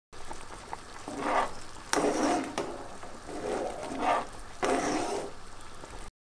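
Metal spoon stirring a saucepan of simmering lentil soup, with about five louder swishes as the spoon sweeps through the thick liquid.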